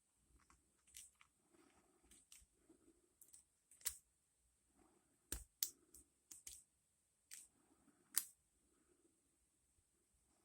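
Faint, irregular clicking and light scraping of a hook pick and tension wrench working the pins inside an ASSA Rune 2 padlock during single-pin picking, with a few sharper clicks standing out.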